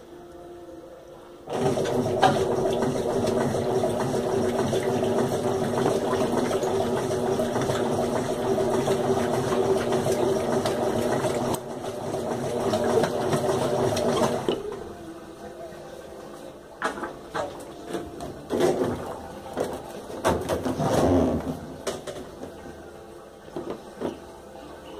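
Washing machine running: a loud, steady machine hum with a rushing, watery noise starts about a second and a half in and cuts off sharply about fourteen seconds in, followed by a quieter hum with a run of irregular knocks.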